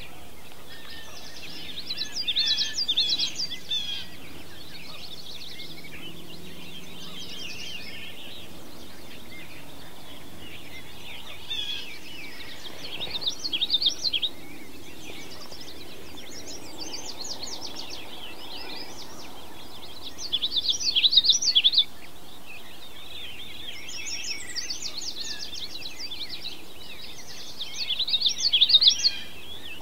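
Songbirds singing: a loud, high, rapid song of about two seconds recurs four times, roughly every eight seconds, with fainter songs of other birds in between, over a steady outdoor hiss.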